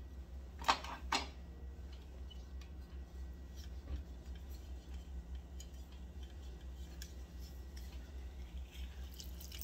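Green plastic hand-held lime squeezer being loaded and pressed: two sharp clicks about a second in, then faint scattered ticks, over a steady low hum.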